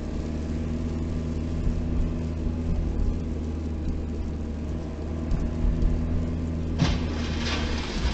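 Car engine running steadily with road noise, heard inside the cabin through a dashcam. Near the end a broad rush of noise rises over the engine hum.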